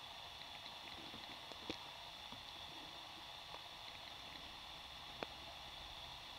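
Faint underwater ambience on a muddy, shell-covered harbour bottom: a steady hiss with a thin high tone, broken by scattered sharp clicks, the loudest about a second and a half in and another about five seconds in.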